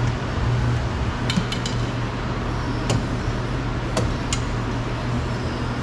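Light clicks and clinks of small door-trim fasteners and hand tools being handled, about six sharp ticks in the middle seconds, over a steady low hum.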